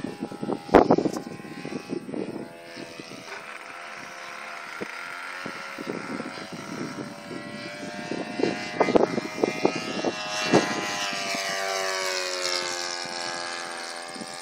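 Saito FA-80 four-stroke glow engine of a radio-control model warbird in flight, running steadily; its note rises and then falls as the plane passes, loudest about ten to twelve seconds in. Several low thumps on the microphone, the strongest about a second in.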